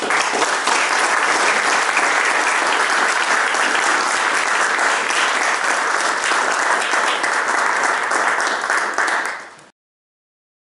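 Audience clapping hands in applause, a dense, steady crackle of many hands, that cuts off suddenly near the end.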